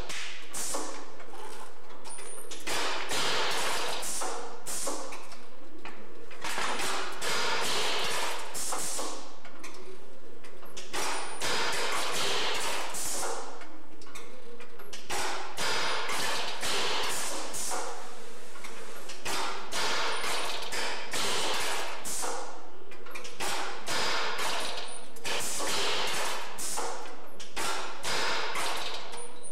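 Dense runs of knocking and clatter from a steel-beam test rig, coming in irregular stretches a second or two long with short lulls between.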